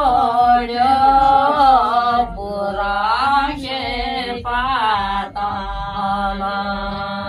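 A group of women singing a phag, a traditional Uttarakhand folk song, in long held notes that bend and glide, with brief breaks between phrases.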